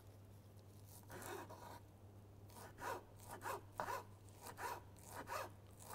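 A knife mincing fresh parsley: a run of quick, scratchy cuts, about three a second, from about two and a half seconds in.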